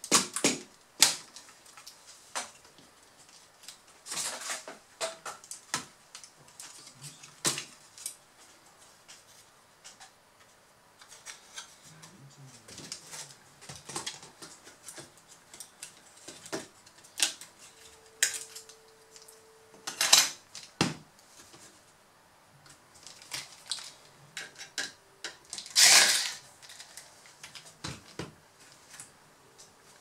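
Irregular clicks, taps and light rattles of plastic and metal laptop parts as a Dell Inspiron 1545's motherboard is worked loose and lifted out of its chassis. A few louder clatters come about 4, 20 and 26 seconds in.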